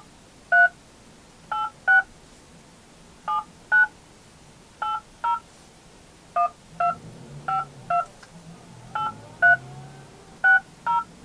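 Mobile phone keypad tones: about seventeen short two-tone DTMF beeps, tapped mostly in quick pairs with short pauses between, as a 16-digit top-up voucher number is keyed in.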